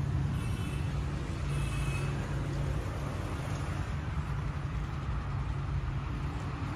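Diesel tractor engine idling steadily, with an even low hum.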